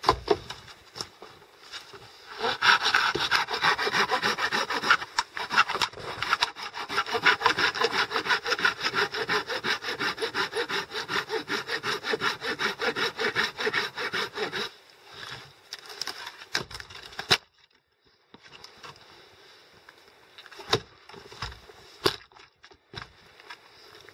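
Silky folding hand saw cutting through a dead branch in rapid back-and-forth strokes for about twelve seconds, then stopping. A few seconds later comes a single sharp crack, followed by light knocks of wood.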